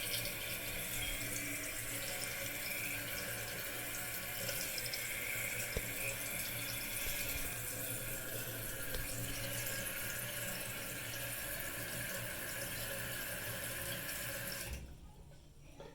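Kohler Wellworth toilet tank refilling: a steady rush of water through the fill valve, which shuts off abruptly near the end as the tank reaches its fill level.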